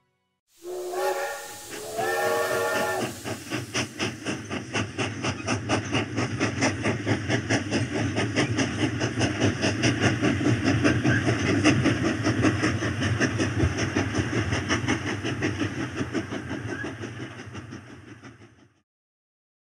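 Steam locomotive whistle giving two short blasts of several tones together, the second a little longer, followed by the locomotive's exhaust chuffing in a steady rhythm that fades away near the end.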